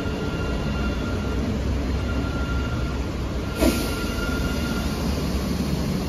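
Songjiang light-rail tram passing close by on wet track: the steady rumble of its steel wheels on the rails, with a faint steady high whine. A brief sharp sound stands out about three and a half seconds in.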